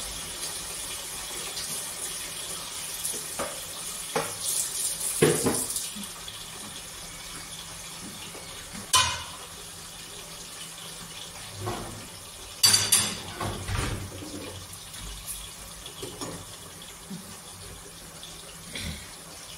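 Water running from a kitchen tap with a steady hiss, with scattered clinks and knocks of dishes; the sharpest clatter comes a little past halfway.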